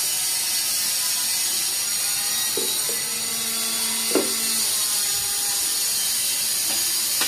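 Thick onion-tomato and curd masala frying in oil in a nonstick pan: a steady sizzle and crackle while a spatula stirs and scrapes through it. The masala is nearly cooked, the oil starting to separate from it.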